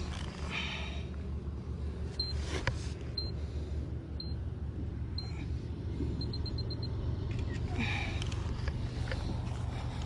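Short high electronic beeps, four about a second apart and then a quick run of about six, over a steady low hum.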